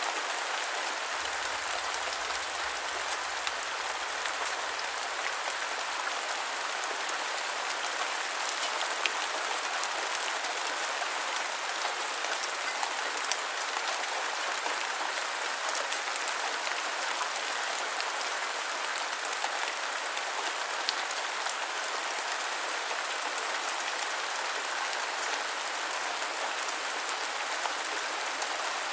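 Steady rain falling on a surface: an even hiss with scattered individual drops tapping, a few of them louder.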